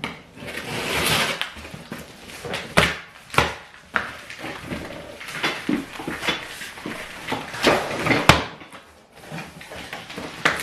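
Handling of a large cardboard furniture box: scraping and sliding, then a string of sharp knocks and bumps, several of them loud.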